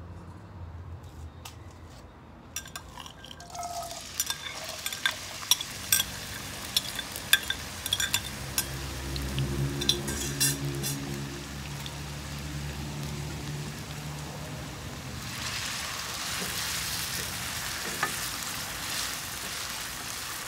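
Diced raw potatoes tipped into hot oil in a nonstick frying pan: a run of clicks and knocks as the pieces land and shift. About three-quarters of the way in the oil sets up a steady sizzle as the potatoes start to fry, and a wooden spoon stirs them near the end.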